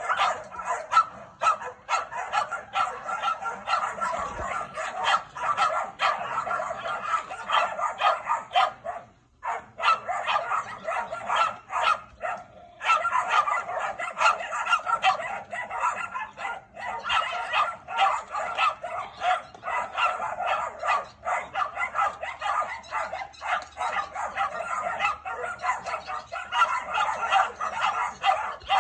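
A litter of 13-week-old Labrador retriever puppies barking and yapping nonstop, several at once in rapid, overlapping barks, with brief lulls about nine and twelve seconds in. It is rough-play barking as the pups square off, which is getting aggressive as the litter matures.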